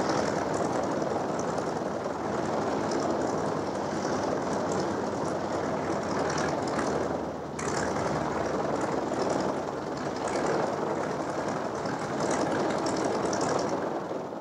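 Boeing Stearman biplane's radial engine running steadily, with a brief dip in level about seven and a half seconds in.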